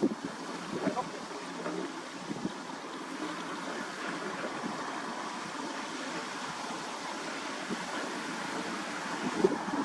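River water washing and lapping in a steady rush that slowly grows louder, with wind on the microphone. A few light knocks come in the first couple of seconds and another near the end.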